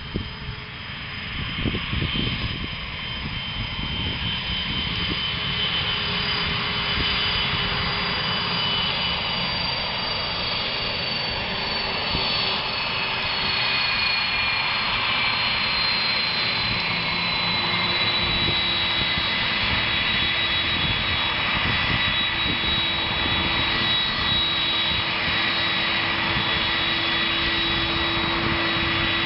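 Jet engines of a twin-engine Airbus A330 airliner taxiing at low thrust. A steady whine and rush grows louder over the first several seconds as the aircraft approaches, and high whining tones slowly fall in pitch throughout.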